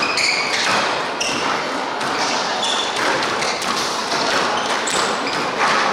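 Squash rally: sharp knocks of the ball struck by rackets and hitting the court walls, with brief high squeaks of court shoes on the wooden floor.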